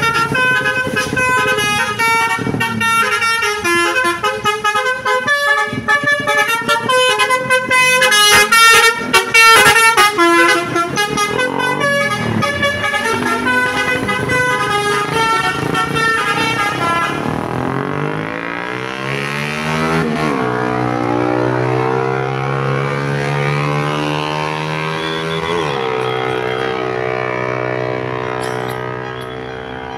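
Basuri V3 telolet horn, a multi-note musical horn, playing a fast melodic run of quick changing notes. After about seventeen seconds it changes to slow sliding tones that rise, drop, hold steady and fade near the end.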